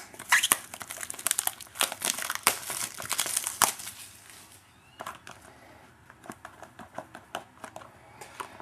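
Trading-card pack wrapper crinkling as it is torn and pulled open, dense for about the first four and a half seconds. Then lighter, scattered ticks and rustles as the cards are handled.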